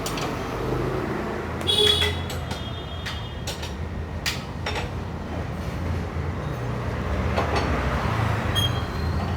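Street traffic: vehicle engines running and passing with a steady low hum, swelling in the second half. A few sharp metallic clicks and a brief ringing tone come about two seconds in.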